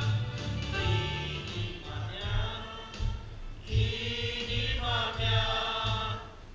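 Romanian worship song: singing with musical accompaniment over a steady low pulse, the voices strongest in the second half.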